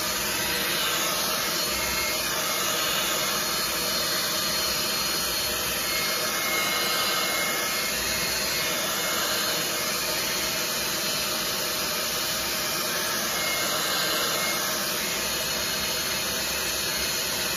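Hand-held hair dryer blowing steadily on one setting, drying wet watercolour paint on paper.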